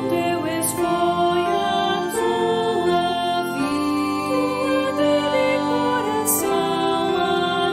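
Music: a hymn being sung over a held, steady accompaniment.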